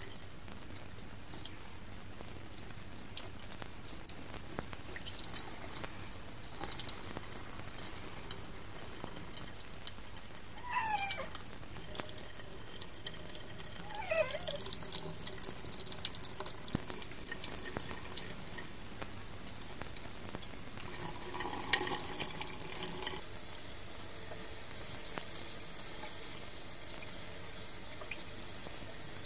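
Water running from a tap and splashing as a cat's oily fur is washed, with two short cries, most likely from the cat, a few seconds apart near the middle.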